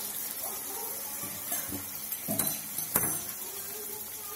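Hot water poured into a kadhai of cooked curry, with a soft steady hiss, and a few clinks of metal against the pan, the loudest about three seconds in.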